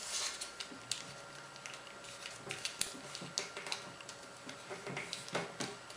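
Origami paper crinkling and crackling as it is folded and creased by hand, an irregular scatter of soft ticks and rustles.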